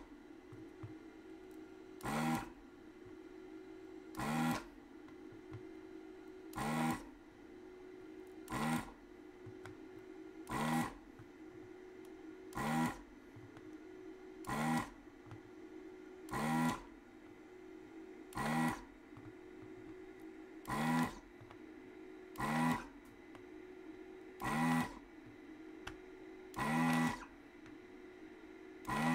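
ZD-915 desoldering station's vacuum pump running in short bursts, about one every two seconds, as the gun sucks the solder from one keyboard switch pin after another. A steady hum runs underneath.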